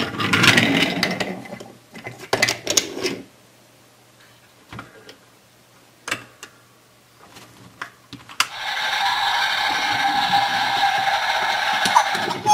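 Wooden toy trains handled on wooden railway track: scraping and knocking over the first few seconds, then a few sharp clicks as the crossing platform's gates are turned by hand. From about two-thirds of the way in, a steady rolling rumble as a wooden train is pushed along the track across the crossing.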